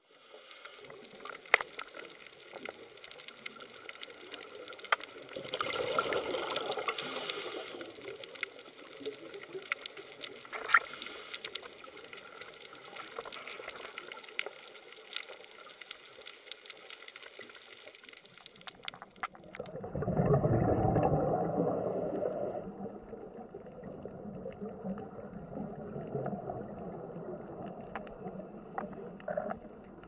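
Muffled underwater water noise, swelling and fading, louder for a few seconds about six seconds in and again around twenty seconds in, with scattered faint clicks.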